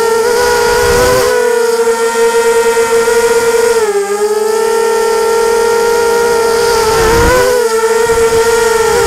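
Whine of a ZMR250 quadcopter's four Emax MT1806 brushless motors spinning Gemfan 5030 propellers, picked up by the onboard camera. It is a steady, loud whine with its pitch dipping briefly about four seconds in and again near seven seconds as the throttle changes. There is a rumble of wind on the microphone about a second in and around seven seconds.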